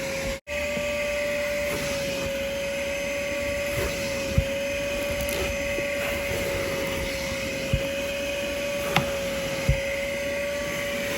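Vacmaster Professional Beast wet/dry shop vacuum running steadily with a constant whine, sucking at car carpet, with a few light knocks from the hose and nozzle. The sound drops out for an instant near the start.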